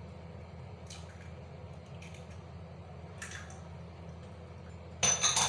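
An egg cracked by hand and dropped into a bowl of minced beef and gram flour, with a few faint taps and a soft squish, over a low steady hum. Near the end a bowl is set down with a short, loud clatter of several quick knocks.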